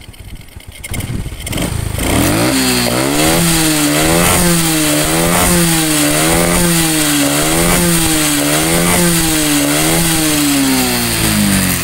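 Honda Karisma 125 single-cylinder four-stroke motorcycle engine revved up and held on the throttle. Its pitch rises and falls in a regular cycle about once a second, then settles back toward idle near the end.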